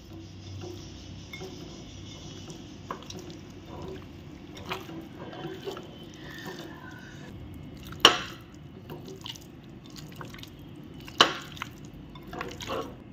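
Hands mixing raw chicken pieces with yogurt and spice paste in a glass bowl: soft wet squishing with scattered small clicks, and two sharper clicks, one just past the middle and one later.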